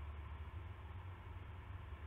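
Steady low hum with a faint even hiss: the background noise of an owl-box camera's microphone, with no distinct sound events.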